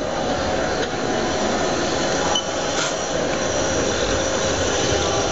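Haas CNC lathe running with its spindle turning, a steady whirring noise with a few faint steady tones, as the tool is jogged in by hand toward the part face to touch off the Z offset.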